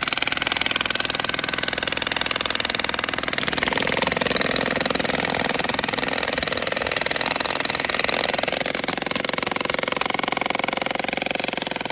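Two jackhammers hammering into rock in a geode-bearing wall: a continuous rapid chatter of blows at a steady level.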